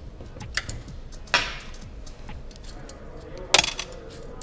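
Light metallic clicks and clinks of a steel wrench on the small nuts of an espresso machine's group head as the nuts are undone by hand. Two louder metal knocks with a short ring come about a second and a half in and again near the end.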